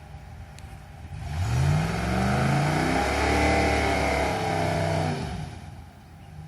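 Pickup truck's engine revved hard with its wheels spinning in soft sand in four-wheel drive: revs climb about a second in, hold with a harsh rushing noise for about three seconds, then drop back near the end.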